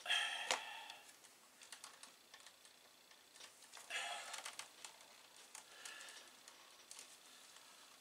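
Light clicks and scrapes of a wire bundle and its plastic strain relief being worked loose from a computer power supply's metal case, with louder rubbing near the start and again about halfway.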